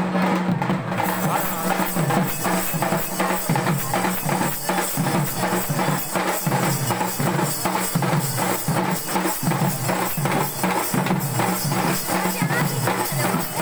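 A group of drummers beating round drums slung at the waist, in a quick, steady, unbroken rhythm.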